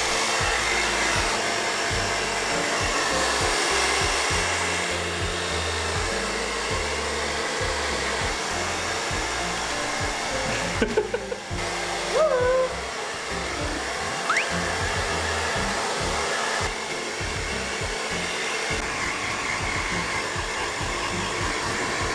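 Handheld hair dryer running steadily, blowing on a wet puppy's coat after its bath. A few brief clicks and a short rising-and-falling tone come through about eleven to twelve seconds in.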